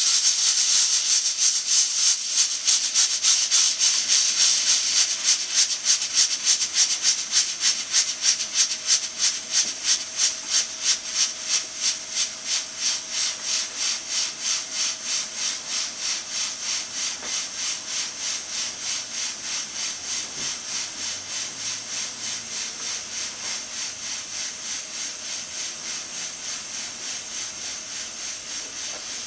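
Stovetop aluminium pressure cooker at pressure: steam hisses out through its weighted regulator valve in rhythmic puffs, about two or three a second, slowly growing quieter.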